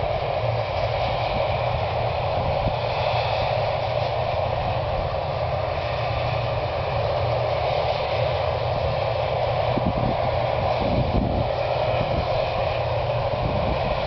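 Combine harvester at work in standing grain: a steady drone of its engine and threshing machinery that holds even throughout.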